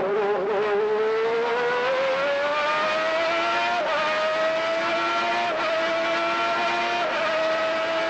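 Onboard sound of a 1991 McLaren MP4/6 Formula One car's Honda V12 engine accelerating, its pitch climbing steadily. It is broken by three quick upshifts, each a brief dip in pitch.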